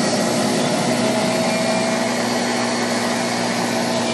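Motorcycle engine running steadily while riding, under a heavy rush of wind on the phone's microphone.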